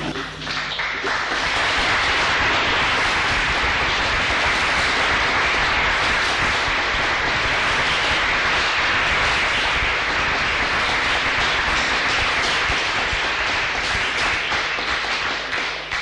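Lecture audience applauding. The clapping builds over the first second or two, holds steady, and dies away near the end.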